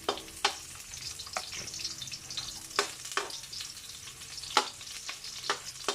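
Chopped onion, garlic and ginger sizzling in hot cooking oil in a pan while being stirred. A utensil knocks sharply against the pan about seven times.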